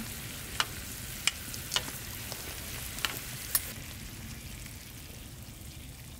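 Glazed meat sizzling in a square grill pan over a campfire, with a few sharp pops in the first three and a half seconds. The sizzle then dies down.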